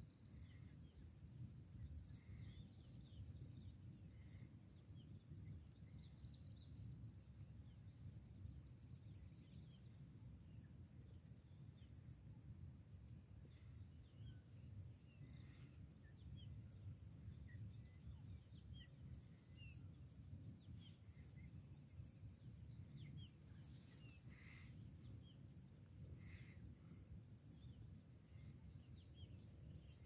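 Faint outdoor ambience: a steady high-pitched insect drone dotted with many short, high chirps, over a low rumble.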